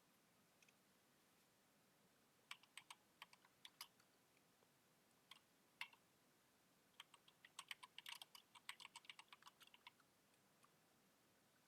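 Faint typing on a computer keyboard: a short run of keystrokes, a couple of single taps, then a longer quick run.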